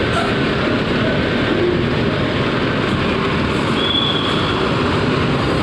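Coach bus driving slowly up a steel ferry loading ramp: a loud, steady mix of engine and rolling noise, with a brief high squeal about four seconds in.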